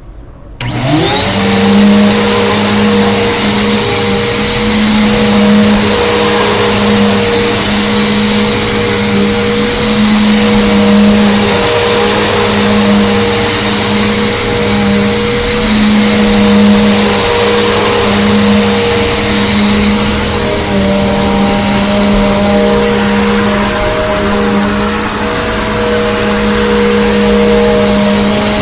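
Bissell Big Green Commercial BGU1451T upright vacuum cleaner switched on about half a second in, its motor quickly spinning up to speed, then running steadily with a low hum and a high whine while vacuuming. Its tone shifts slightly about twenty seconds in.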